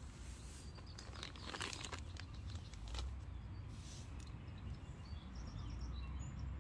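Faint rustling and crinkling of plastic packaging in several short, irregular bursts as bait ingredients are handled, over a low steady background rumble.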